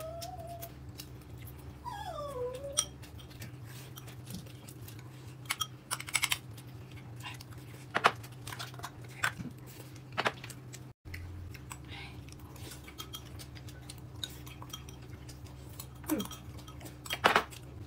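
Bowls, plates and chopsticks clinking in scattered sharp clicks as people eat at a table, over a steady low hum. A short falling whine comes about two seconds in.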